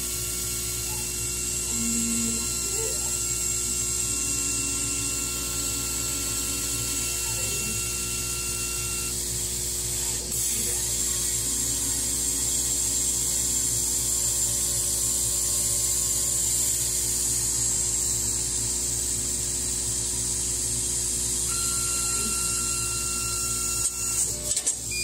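CO2 laser cutter at work cutting half-inch poplar: a steady machine hum and high hiss, with short motor tones coming and going as the head travels along the cut. A few clicks come near the end.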